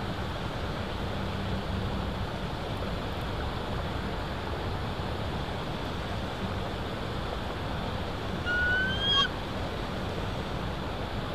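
Steady rushing wind noise, with one short whistled bird call that rises slightly in pitch about eight and a half seconds in.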